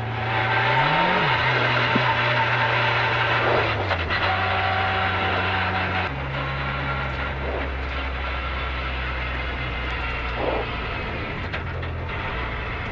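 Peugeot 205 rally car engine heard from inside the cabin, running at moderate revs with a brief rise about a second in, then dropping near four seconds and settling to a lower steady pitch as the car rolls slowly. The car has a failing clutch, which the crew put down to the clutch or its release bearing.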